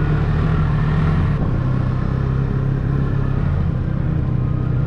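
Ski-Doo 600 ACE snowmobile's three-cylinder four-stroke engine running at a steady pitch.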